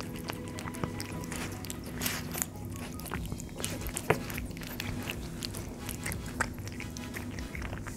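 A cat eating chunks of wet food in sauce from a saucer, close to the microphone: a run of quick chewing and mouth clicks, the sharpest about four seconds in.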